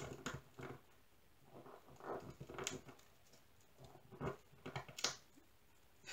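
Clear plastic pieces of a coaster holder being handled and pushed together: scattered faint clicks and short scrapes at irregular intervals.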